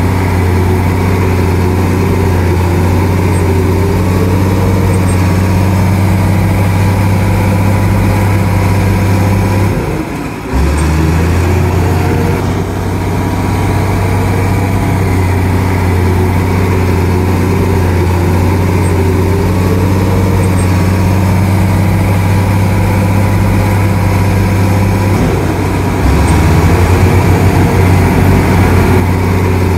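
Shantui DH17C2 bulldozer's diesel engine running steadily with a low drone. The sound dips briefly about ten seconds in, then comes back, and grows louder for a few seconds near the end.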